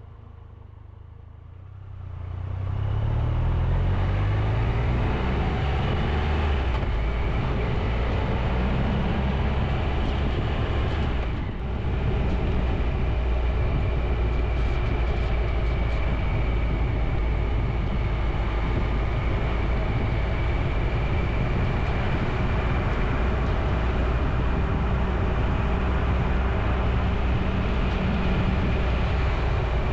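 Motorcycle pulling away, its engine note rising for a few seconds from about two seconds in, then cruising steadily under heavy wind and road noise.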